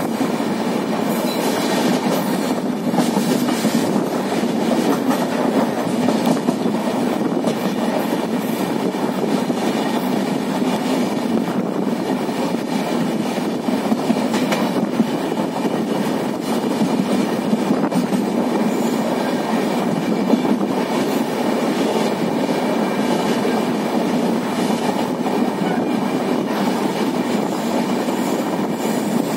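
Passenger train running along the track, heard from aboard a coach: a steady rumble of wheels on rail with scattered clacks.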